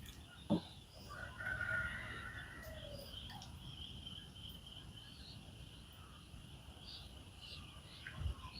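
A rooster crowing once, starting about a second in, preceded by a single sharp knock.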